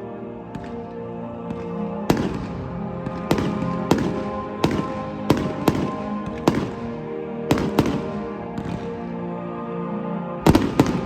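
Fireworks going off over background music: about a dozen sharp bangs starting a couple of seconds in, some in quick pairs, with the loudest burst near the end.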